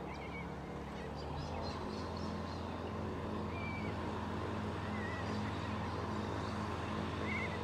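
A tow plane's piston engine idling with a steady low hum, a little louder about a second in, while short high chirps from birds sound over it a few times.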